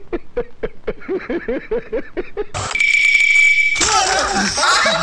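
A man laughing heartily in quick, evenly repeated bursts of about five a second. It breaks off into a steady, loud, high-pitched beep lasting about a second, followed by loud, noisy shrieking voices near the end.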